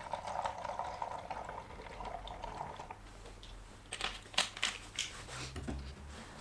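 Warm water running into a container to dilute snow foam, a steady filling rush that stops about three seconds in. A few sharp knocks follow about four seconds in.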